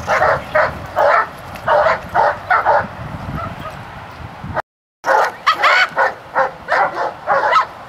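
A dog barks at a decoy with a bite sleeve, two or three quick barks a second. The barking breaks off midway, the sound cuts out completely for a moment, then the barking starts again.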